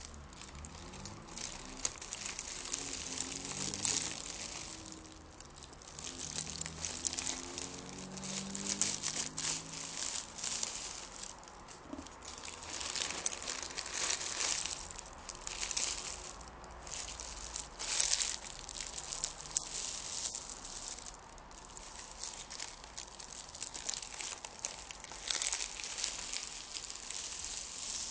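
A small sheet of paper being crinkled and rustled by hand, in uneven waves of crackly rustling that swell and fade every second or two.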